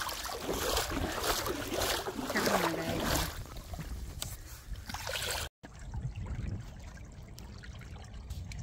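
Shallow water splashing and lapping around a small sailboat, with wind on the microphone. After a short dropout about five and a half seconds in, there is quieter, low wind and water noise.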